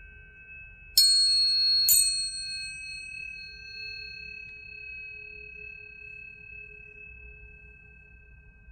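Tuning forks struck twice, about a second apart: each strike gives a bright metallic clang that dies away quickly, leaving clear steady tones that ring on and slowly fade.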